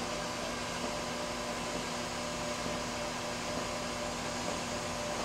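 RMT S-FAB PDM 17-24 double-miter bandsaw running with a steady mechanical hum and whir as its saw bow lowers.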